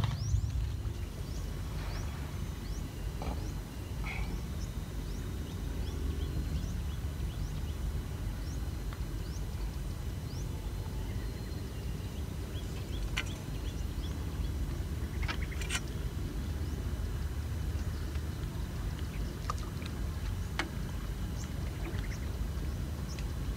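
Wind buffeting the microphone at the water's edge, a steady low rumble, with a few faint short high chirps in the first few seconds and scattered small clicks.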